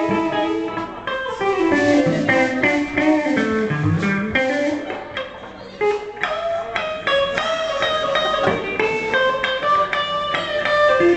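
Electric guitar played through an amp: an instrumental break of picked single notes and chords, dropping quieter for a couple of seconds midway before picking up again.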